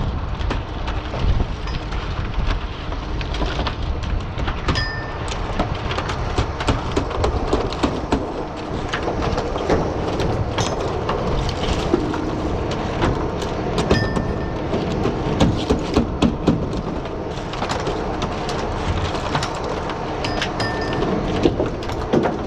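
Oyster shells clattering and knocking against each other and the culling board as dredged oysters are culled by hand, over a steady low rumble of the boat's engine and wind on the microphone.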